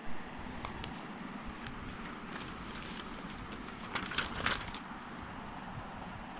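Paper booklet handled and its cover page turned by hand: light crinkles and clicks of paper, then a short crisp rustle as the page flips over about four seconds in, over a steady background hiss.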